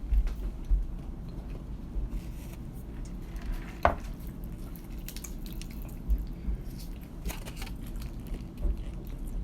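Close-up eating sounds: wet chewing with small knocks and clicks from handling the food and its packaging, and one sharp click about four seconds in.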